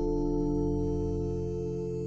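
Ambient music: a slow, sustained chord held and fading a little.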